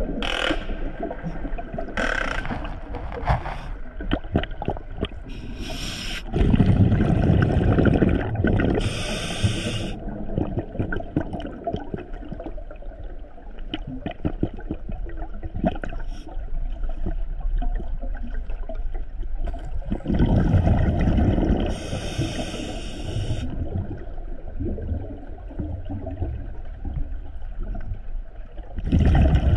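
A scuba diver breathing through a regulator, heard underwater: short hissing inhalations and long, loud bubbling exhalations, two of them about 6 and 20 seconds in.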